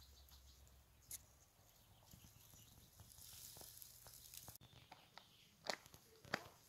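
Quiet woodland ambience, then two footsteps on a leaf-strewn dirt trail near the end.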